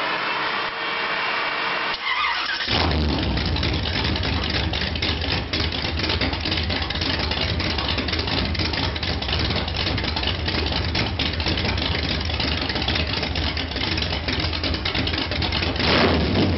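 V8 engine of a custom chopper motorcycle being started: a couple of seconds of cranking, then it fires about three seconds in and settles into a steady idle, with a short rev near the end.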